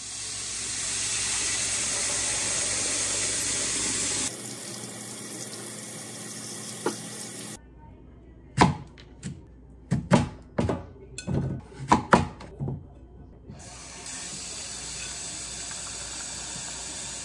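Kitchen tap running into a glass bowl, dropping to a quieter run after about four seconds. Then about ten sharp knife strokes on a wooden cutting board as a sweet potato is cut, and near the end the tap runs again into a rice cooker's inner pot.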